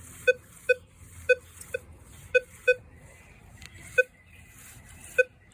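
Minelab Vanquish 440 metal detector giving short, low beeps, mostly in quick pairs, with gaps in between. It is signalling a steel penny with iron discrimination switched off, a signal that is pretty weak.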